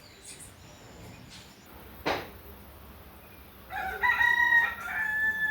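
A rooster crowing once, a long call starting a little past halfway through and fading near the end. A brief, sharp noise comes about two seconds in.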